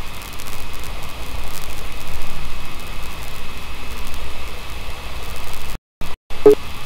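Steady background hiss with a faint high steady whine, typical of a recording microphone's noise floor. It cuts out twice briefly near the end, followed by a single short click.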